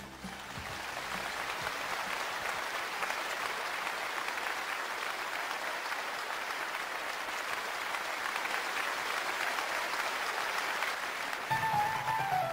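Applause: an even clatter of many hands that swells in over the first couple of seconds. Near the end it gives way to music with a plucked-string instrument.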